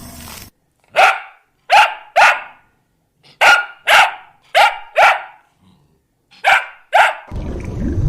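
Dog barking: about nine sharp barks in short groups of two or three. A different low sound cuts in near the end.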